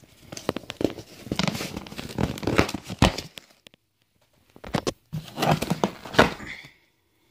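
A stapled cardboard shipping box being pulled open by hand: scraping, crinkling and tearing of the flaps in two spells, with a pause of about a second and a half between them.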